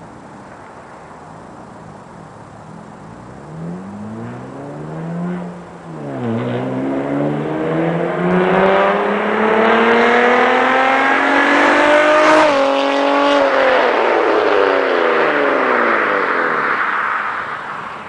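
A 2001 Nissan Maxima's V6 with an aftermarket exhaust, accelerating hard past the listener. The revs climb, drop sharply at a gear change about six seconds in, then climb again to the loudest point. After another sudden change about twelve seconds in, the note falls and fades as the car drives away.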